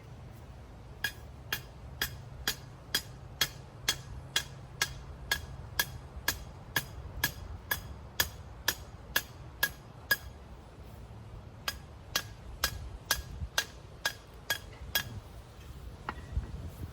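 Hammer blows ringing on a metal ground rod as it is driven into the ground, about two strikes a second, with a short pause about ten seconds in before the strikes go on.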